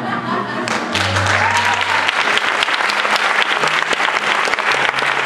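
Audience breaks into applause about a second in, dense clapping that continues over the orchestra's low closing notes after a musical number.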